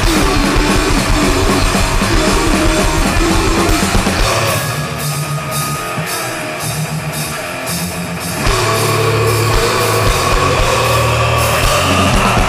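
Recorded grindcore (mincecore) song: loud, dense band music with drums. About four and a half seconds in it drops to a quieter, sparser passage, and the full band comes back in about four seconds later.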